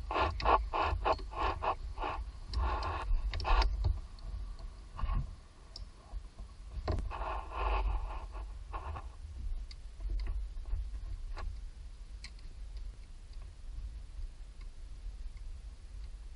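Ratchet wrench being worked in quick rhythmic strokes, about three or four a second, stopping after a few seconds. A second short run follows, then occasional single clicks over a low steady rumble.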